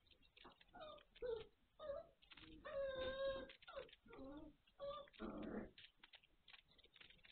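Five-week-old Magyar Vizsla puppies whining: a run of short, high, wavering whines, with one longer drawn-out whine about three seconds in.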